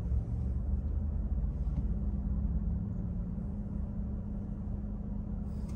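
Car running and driving, heard from inside the cabin: a steady low rumble of engine and road noise.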